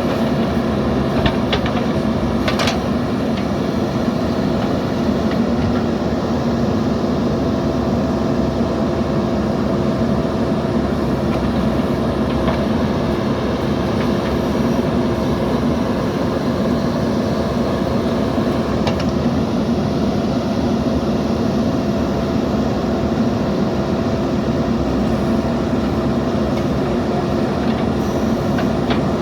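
JCB backhoe loader's diesel engine running steadily under work, with a few brief clicks or knocks in the first few seconds.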